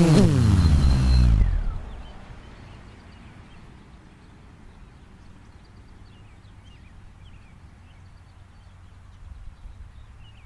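A QAV500 quadcopter's brushless motors (MT2814 770KV with Xoar 10x6 props) spinning down to a stop after landing, their whine falling steeply in pitch and dying out within about a second and a half. Then quiet outdoor ambience with faint bird chirps.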